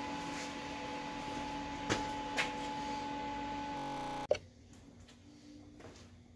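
Steady workshop background hum with two faint clicks about two seconds in. It cuts off abruptly a little past four seconds to a much quieter room tone.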